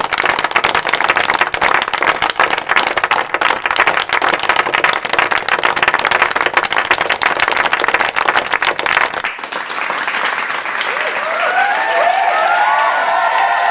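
Large crowd applauding with dense, fast clapping, which cuts off abruptly about nine seconds in. A crowd cheering and shouting takes over, with many voices rising and falling.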